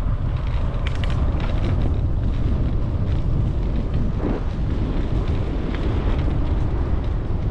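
Wind buffeting the microphone of a moving bicycle, a steady loud low rumble, with faint rolling noise from the ride.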